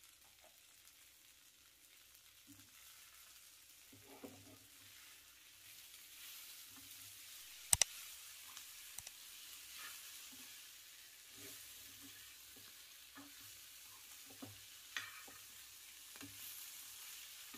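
A spatula stirring boiled elephant foot yam into wilted Malabar spinach in a pan, with a faint sizzle that grows a little louder about four seconds in and soft scraping ticks. A single sharp clack about eight seconds in is the loudest sound.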